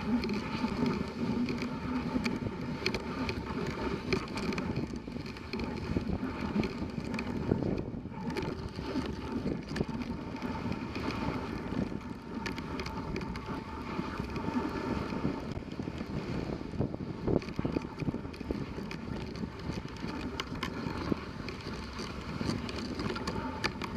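Dog sled running over a packed snow trail: a steady scraping from the runners on snow, with many small knocks and rattles from the sled, and wind on the microphone.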